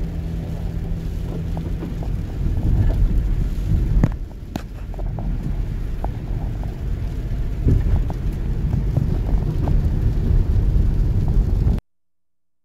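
A car driving in heavy rain, heard from inside the cabin: a steady low road and engine rumble with scattered ticks of raindrops on the windshield. It cuts off abruptly near the end.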